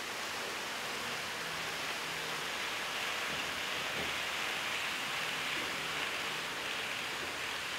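Steady rushing hiss of a model container freight train rolling along the track, swelling a little in the middle of the run.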